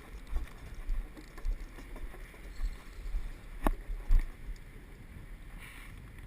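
Uneven wind rumble on the microphone, with scattered small handling clicks and one sharp click about three and a half seconds in.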